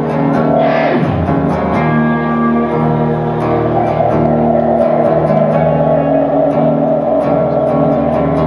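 Live rock band playing through the venue PA: an acoustic guitar strummed alongside electric guitar, with sustained notes ringing steadily.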